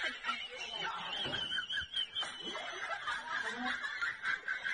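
People snickering and laughing, with short, overlapping bursts of laughter.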